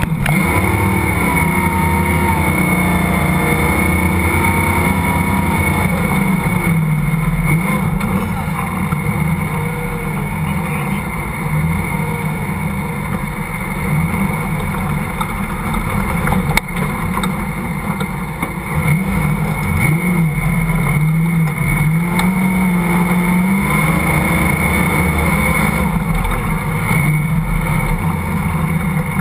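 Engine of an off-road vehicle driving over sand dunes, heard from inside the cab, its revs rising and falling with the throttle over several seconds.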